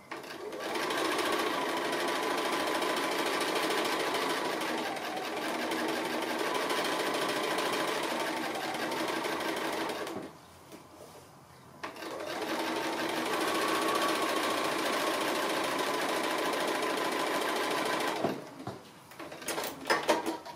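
Bernina sewing machine running for free-motion stitching around a fused appliqué, in two long runs with a short stop about ten seconds in; its speed rises and falls as it goes. Near the end the machine stops and a few light clicks follow.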